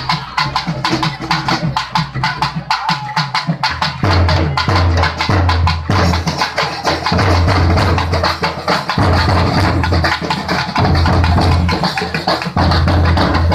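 Loud music over a festival sound system, built on fast, even percussion strokes; a deep bass line joins about four seconds in.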